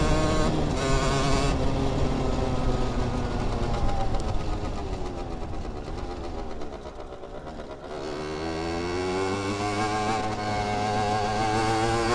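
Rieju RR 50's 50 cc two-stroke moped engine under way: the revs fall off steadily for about seven seconds as the bike slows, then climb again as it accelerates away, with wind noise underneath.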